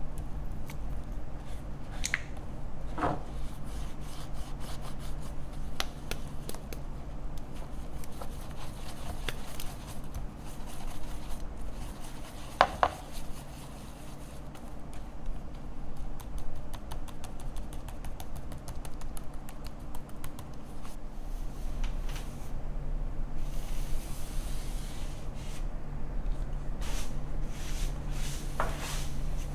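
Rubbing and scraping sounds with scattered clicks and a few short sharp knocks, over a steady low hum; a stretch of rapid ticking runs through the middle.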